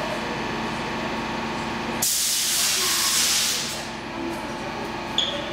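A stationary Stockholm Metro C14 train car hums steadily. About two seconds in, a loud hiss of compressed air from the train's pneumatic system starts abruptly and eases off over the next two seconds. A short high beep sounds near the end.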